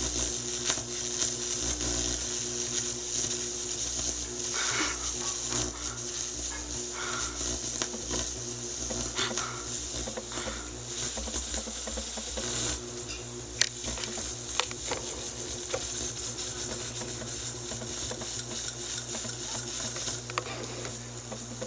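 Interference from a plasma lamp coming out of loudspeakers, a weird noise: its high-voltage field passes through the body of a person touching both the lamp and the bare end of an audio cable. It is a steady hiss over a low, wavering hum, with a few short clicks.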